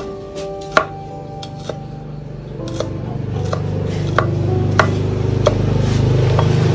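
A cleaver knocking down onto a wooden chopping block in slow, irregular chops, about eight in all. A low drone grows louder in the second half.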